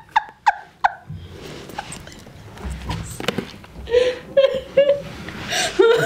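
Short bursts of laughter, with a stretch of low, muffled rubbing and mouth noise in the middle as a man takes a peeled banana off the table with his mouth. The laughter picks up again near the end.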